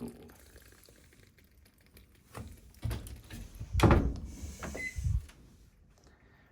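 A handful of dull knocks and thuds at irregular spacing, the loudest about four seconds in.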